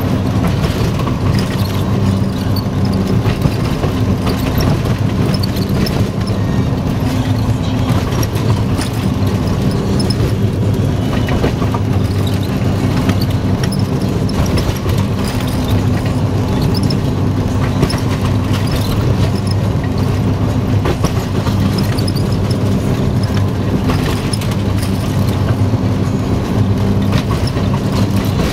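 TU4 narrow-gauge diesel locomotive's V12 diesel engine running steadily under way, heard from inside the cab, with scattered clicks and rattles from the moving train.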